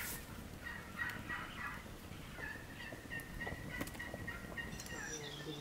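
Domestic fowl calling: a run of quick short notes, then a long, nearly level call from about two and a half seconds in. Sharp crackles from a wood fire under cooking pots.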